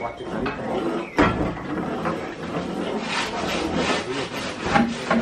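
Building work: a steady rough scraping and rubbing, with a sharp knock about a second in and two more near the end.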